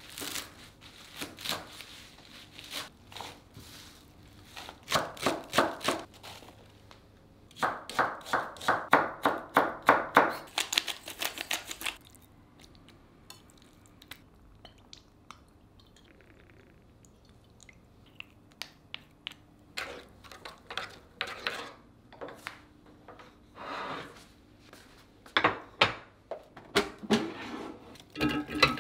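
Kitchen food-preparation sounds: runs of quick knocks and clicks from utensils on a work surface, in several clusters with quiet pauses between. One run about eight seconds in is an even beat of about three strokes a second.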